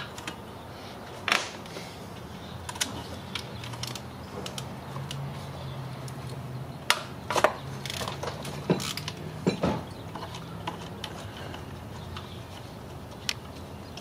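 Hand ratchet clicking in short spells, with sharp metallic clinks of the socket and bolts, as bolts are backed out of the camshaft-end housing on an engine.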